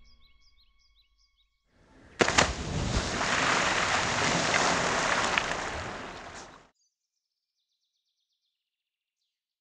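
A person plunging into a lake: a sharp splash about two seconds in, followed by several seconds of water churning and spraying that cuts off suddenly. After it, faint bird chirping.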